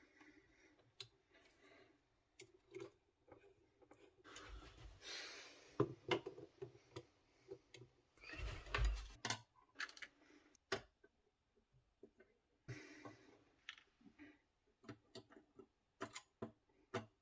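Hands handling computer parts and hardware: scattered light clicks and taps, with two stretches of rustling and scraping about four and eight seconds in.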